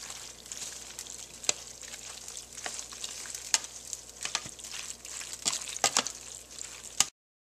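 A spatula stirring and folding a pasta mixture in a plastic mixing bowl: a wet, scraping hiss with scattered clicks and knocks of the spatula against the bowl. It cuts off to silence near the end.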